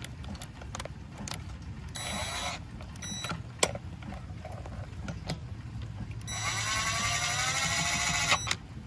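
Ryobi PCL265 cordless 1/2-inch impact wrench driving a pickup's lug nut back on. It runs in a short burst about two seconds in, then a brief blip, then a longer run of about two seconds near the end, whose pitch rises slightly and then holds.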